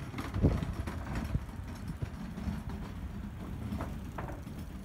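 Wind buffeting the microphone as a low rumble, with a few irregular knocks and taps.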